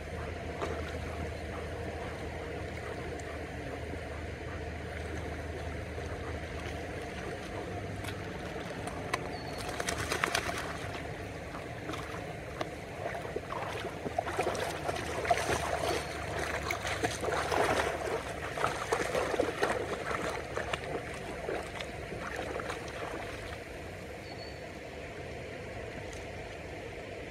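Shallow river water running steadily, with a golden retriever puppy splashing as it wades and swims, loudest in a short burst about ten seconds in and again through the middle.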